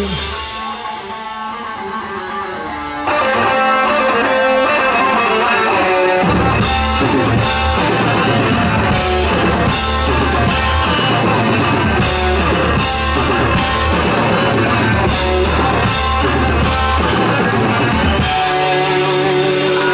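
Live thrash metal band playing an instrumental passage. Electric guitar is alone at first; the sound fills out about three seconds in, and drums and bass come in hard about six seconds in.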